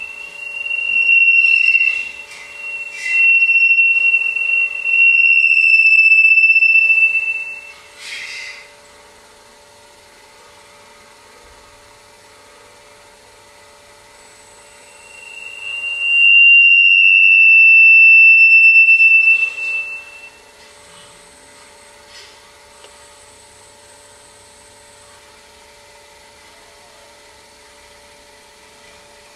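Acoustic feedback (Larsen effect) between a microphone and a loudspeaker cone carried on robotic arms: a loud, high, steady howl that swells up and cuts off several times in the first eight seconds, with a few crackles and a brief harsh burst, then one longer howl about sixteen to twenty seconds in. Between the howls only a faint steady hum remains, as the microphone is pulled back from the cone to keep the loop short of saturation.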